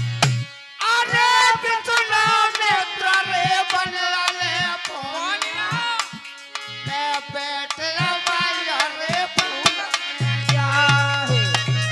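Village folk bhajan music: a dholak barrel drum beats a steady rhythm under a harmonium and a wavering melody line. The drum's low strokes get noticeably heavier about ten seconds in.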